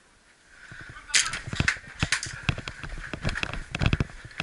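Airsoft firefight at close range: from about a second in, a quick irregular string of sharp clacks and knocks, several with a dull thud, as shots are fired and BBs strike the wooden plank walls of the fort.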